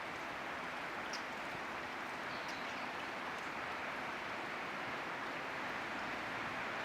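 Steady rushing of running water, likely a stream, with a few faint, brief high chirps.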